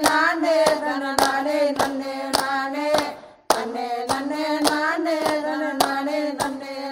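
A crowd claps in steady time, just under two claps a second, to one voice singing a Tamil devotional song to the goddess Veeramakali in long held notes; the singing and clapping break off briefly about halfway, then carry on.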